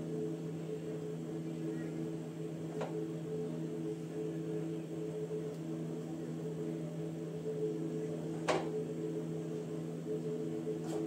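A steady low hum, like a running appliance or motor, with two light clicks, one about three seconds in and one about eight and a half seconds in.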